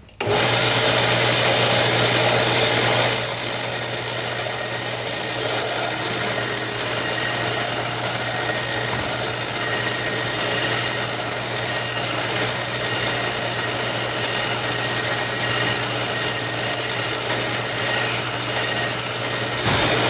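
Bench belt sander switched on and running with a steady motor hum; from about three seconds in, a wooden bird blank is pressed against the 60-grit belt, adding a rough sanding noise as the body is rounded off.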